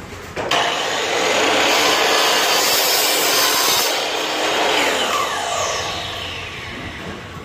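Makita miter saw starting up and cutting through an aluminium U-channel for about three and a half seconds. After the trigger is released the blade winds down with a falling whine.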